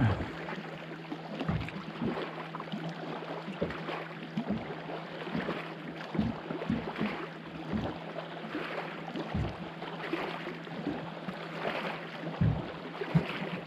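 Small waves slapping against the hull of a fishing boat as it rocks, in irregular knocks and splashes over a steady low hum.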